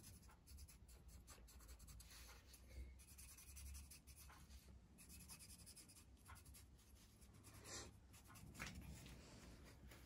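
Faint scratching strokes of a felt-tip marker pen drawn around the bottom edge of a small turned beech piece.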